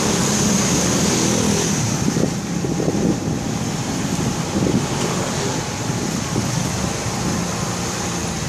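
Motorcycle engine running at low speed in city street traffic, its pitch rising and falling slightly, with other vehicles going past and a steady rushing noise.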